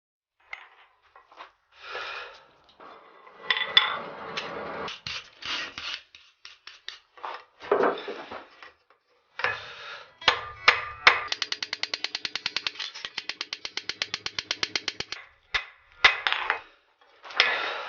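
Workshop hand-tool sounds on metal in short cut-together bursts: scraping and knocks, then a fast, even run of ratchet-like clicks at about eight a second for some four seconds.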